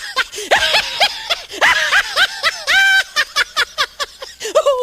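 High-pitched snickering laugh sound effect: a quick run of short 'hee-hee' syllables, each rising and falling in pitch, about four to five a second.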